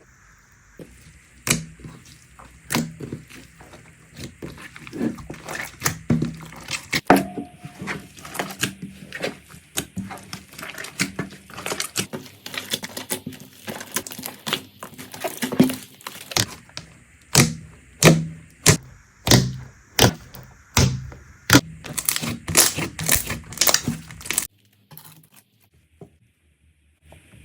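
Slime being pressed and worked by hand, giving a stream of sharp pops, clicks and crackles. The pops come thicker in the second half and stop abruptly near the end.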